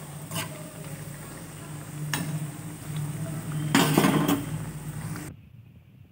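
Hot oil sizzling steadily as pieces of ground chana dal (split chickpea) paste deep-fry in a kadai, with metal utensil clinks against the pan. The loudest clatter comes about four seconds in, and the sizzle cuts off abruptly a little after five seconds.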